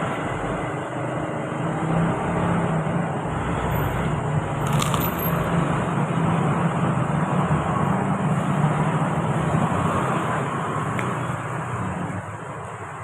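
Steady motor-vehicle and road-traffic noise with a low engine hum, dying down near the end, and one sharp click about five seconds in.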